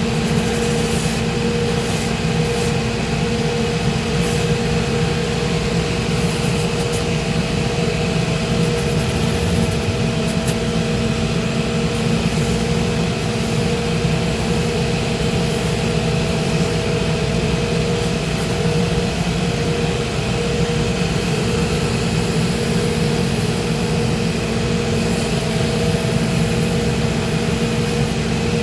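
Shoe repair finishing machine running: a steady motor hum over a continuous rough grinding noise.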